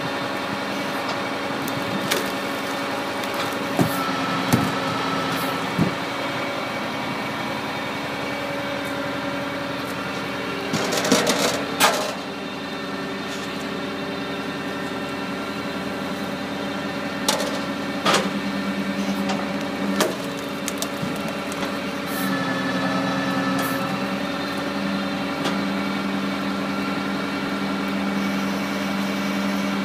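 Tractor engine running steadily to drive a Stanley Logger firewood processor, with sharp knocks and cracks as the guillotine splits hardwood logs and the split pieces clatter down the metal chute, the busiest burst of cracking about 11 seconds in. The engine note changes about 22 seconds in as the machine takes up load.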